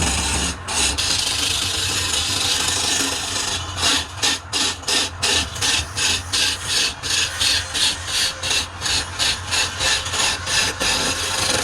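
A tool scraping and rasping wood. It is steady at first, then from about four seconds in it goes in regular back-and-forth strokes, about three a second, until near the end, over a low steady hum.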